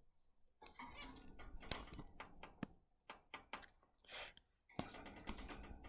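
Zebra finches moving about a wire cage: irregular soft clicks, taps and scratches from feet and beaks on the wire grate and perches.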